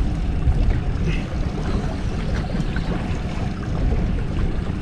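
Wind buffeting the microphone in a steady low rumble, with water washing against the boat's hull.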